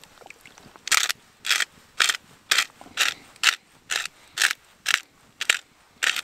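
Hand-twisted spice mill grinding over a pan, in short grinding strokes about two a second, starting about a second in.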